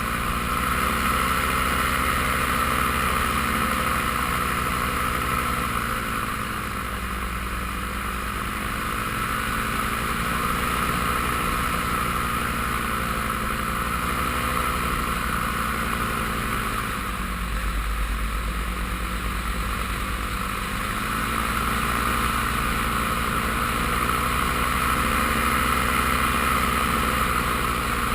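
Paramotor engine and propeller running steadily in flight, with the engine pitch dipping and coming back up twice as the throttle is eased and reopened.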